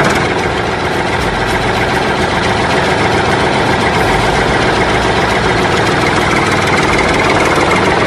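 A tank's engine running steadily, a dense rumble that cuts in suddenly.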